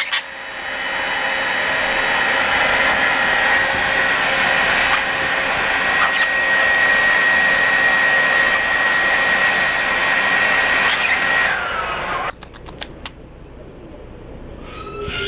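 An electric motor runs steadily with a high whine, then is switched off and winds down, falling in pitch, about twelve seconds in. A few quick clicks follow.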